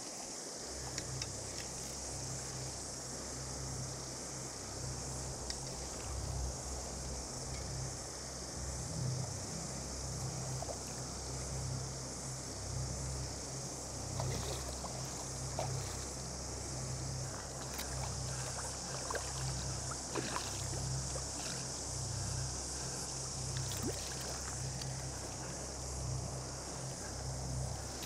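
Steady river ambience: shallow water running, with a continuous high-pitched cicada chorus from the trees. A low rumble comes in about a second in, with a few faint clicks now and then.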